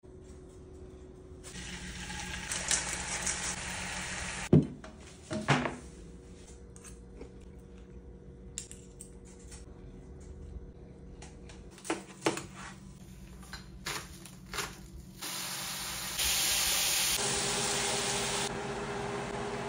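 Kitchen sounds: a stretch of running water, a few sharp clatters of dishes and cutlery, and near the end chicken sizzling steadily in a frying pan as sauce is poured in.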